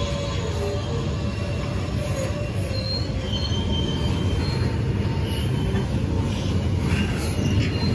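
Train running on the rails: a steady low rumble with several short, high-pitched wheel squeals, and a few sharp clicks near the end.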